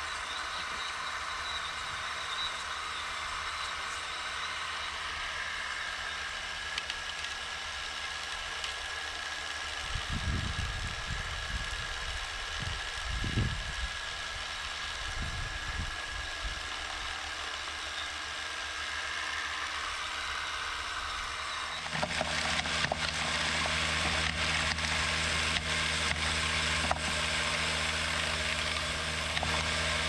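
RC excavator running with a steady whine while it tips soil and stones into a model screener's hopper, with low rumbles of material dropping about ten to sixteen seconds in. About 22 seconds in, a louder steady hum with rattling clicks takes over: the scale screener's vibration motor and conveyor running, shaking stones across the screen.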